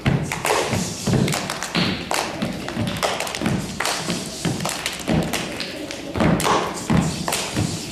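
Group of children stamping their feet on a wooden stage floor and clapping their hands in a body-percussion routine: a continuous run of thuds and claps.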